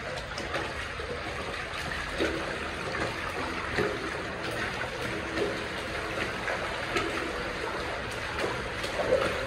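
Water trickling and flowing steadily through a tunnel, with short splashes about every second and a half.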